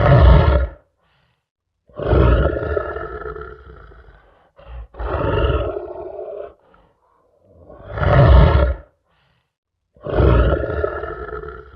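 Lion roaring over and over: a series of loud roars, one every two to three seconds, each sliding down and trailing off.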